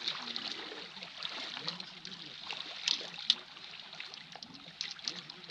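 Small waves lapping and trickling against the shore rocks, with two sharp clicks about three seconds in.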